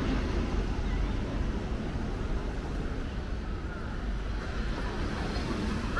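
Steady city street ambience: a low, even rumble of traffic.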